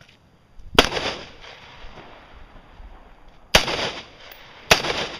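Three rifle shots fired in a practical rifle competition stage: one about a second in, then two close together near the end, each followed by a short echo.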